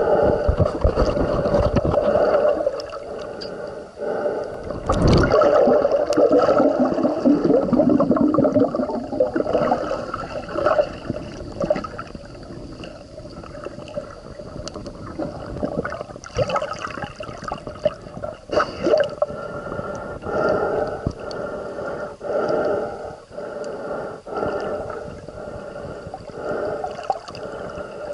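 Muffled underwater gurgling and sloshing of water, heard from beneath the surface, with scattered clicks and knocks. It is louder near the start and again from about five to ten seconds in.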